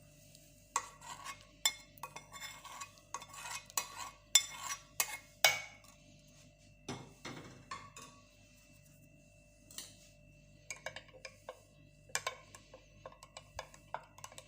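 A metal spoon clinking and scraping against a pot and a glass as hot milk with garlic and garden cress seeds goes into the glass. There are quick irregular clinks for the first several seconds, a few scattered ones in the middle, and another run near the end, over a faint steady hum.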